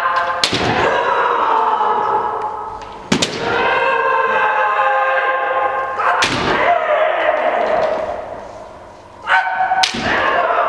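Kendo fighters' kiai: long drawn-out shouts, several times, each set off by a sharp crack of bamboo shinai striking armour or a stamp of bare feet on the wooden floor. The shouts ring in a large hall.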